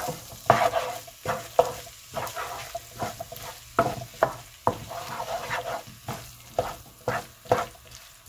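Wooden spatula stirring instant noodles and diced bacon in a frying pan, scraping and knocking against the pan in irregular strokes, over the sizzle of the food frying.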